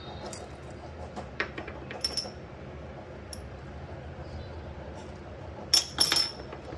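Light metallic taps and clinks on a stainless-steel mixer-grinder jar as spices are tipped in from paper cups, each with a brief high ring; a few come a second or two in and the loudest two near the end.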